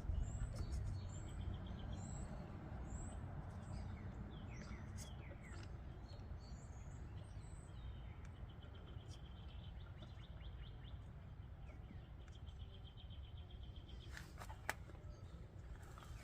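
Birds chirping and trilling over a low, steady rumble, with a few sharp clicks near the end.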